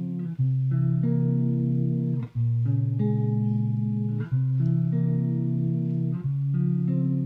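Live band music with no singing: guitar and bass holding sustained chords that change about every two seconds, each change marked by a brief drop.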